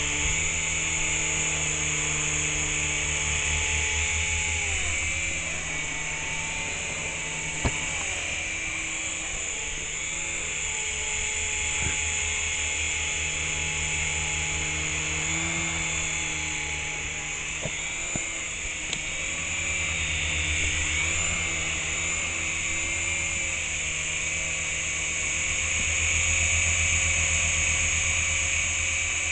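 Small electric RC helicopter hovering: a high whine from its motors over the buzz of its spinning rotor blades. The pitch rises and falls several times.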